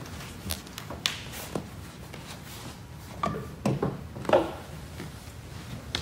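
Scattered knocks and clicks, about half a dozen spread unevenly: footsteps on a wooden floor and an electrical cable being handled.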